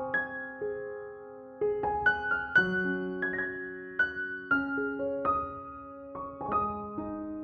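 Soft background piano music: single notes and chords struck about once a second, each ringing on and fading.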